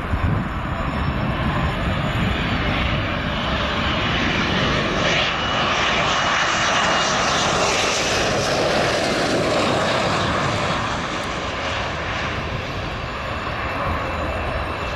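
Panavia Tornado's twin RB199 turbofan engines on a landing approach: steady jet engine noise that grows sharper and hissier about halfway through as the jet passes, then eases off.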